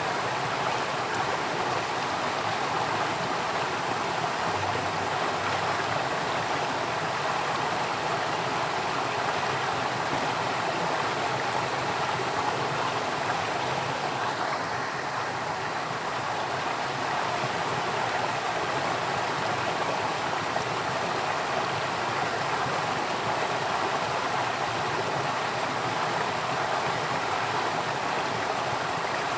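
Running water flowing steadily, an even, unbroken wash of sound.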